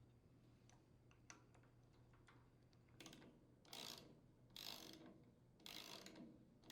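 Ratchet wrench with a 1/2-inch socket turning a small gear puller to draw a push cap off a chipper shredder's wheel axle: a few faint clicks, then from about halfway short ratcheting strokes, roughly one a second.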